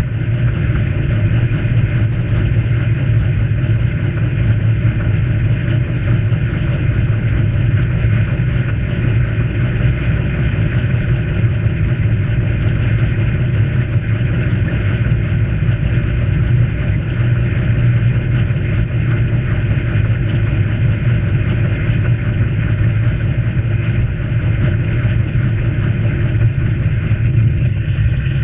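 Steady rumble of wind on the microphone of a bicycle-mounted camera, with tyre noise from the bike rolling along a tarmac path. It runs unbroken and loud, with the weight in a low drone.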